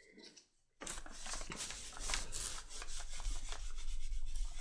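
Paper towel rubbing over tooled leather, wiping excess black antique stain off: an uneven, scratchy rubbing with small irregular scuffs that starts about a second in.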